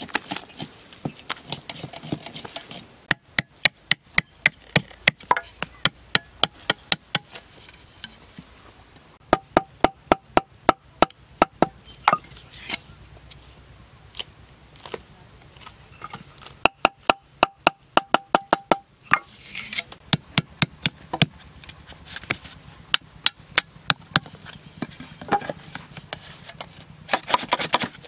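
A machete blade chopping into a green bamboo tube in quick runs of sharp strikes, about five a second. Some strikes ring with a short note.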